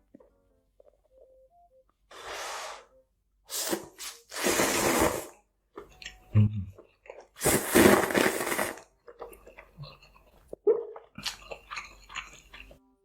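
Close-miked eating: several loud bursts of crunching and biting, with softer chewing crackles between them.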